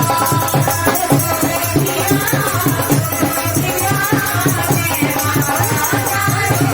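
Upbeat Krishna bhajan music with a fast, steady drum beat and shaker-like percussion under a sustained melody.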